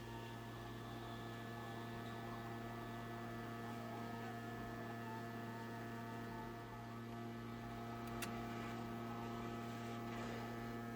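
Steady electrical mains hum with evenly spaced overtones over a faint hiss, with no distinct events.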